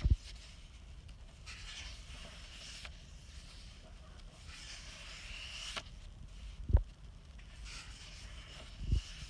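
Sketchbook pages being turned by hand: a soft papery rub and rustle every few seconds, with two dull thumps near the end.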